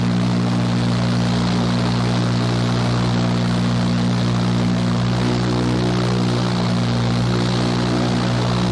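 Indoor skydiving wind tunnel's fans blowing the vertical airstream: a steady loud rush of air over a constant low hum.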